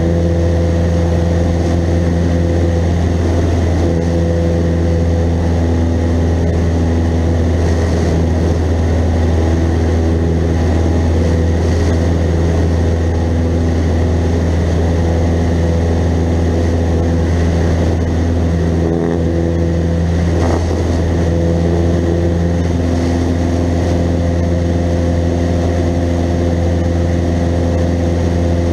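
Cessna 172N's four-cylinder Lycoming piston engine and propeller running steadily in flight, heard inside the cabin as a constant low drone.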